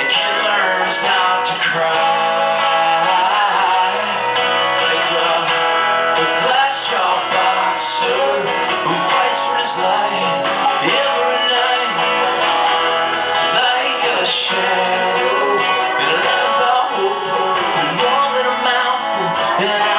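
Live band playing an instrumental passage of a folk-rock song: strummed acoustic guitar and banjo with the full band behind them, steady and loud.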